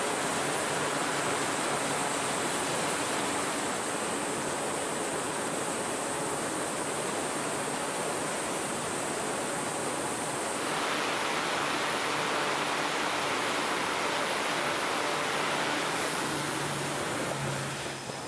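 Twin turboprop engines of a Navy E-2 Hawkeye running at high power on a carrier catapult: a loud, steady roar with a faint hum in it. The noise drops away near the end as the aircraft launches.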